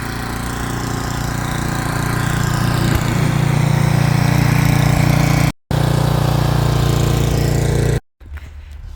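An engine running steadily, growing louder over the first few seconds and then holding level, with two brief moments where the sound cuts out completely.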